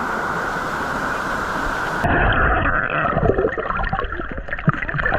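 Rushing water with a steady hiss; about two seconds in it cuts to muffled, irregular gurgling and splashing of water.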